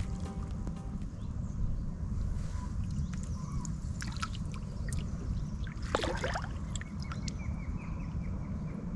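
Water sloshing and lapping against a small boat over a steady low rumble, with a couple of sharp knocks partway through.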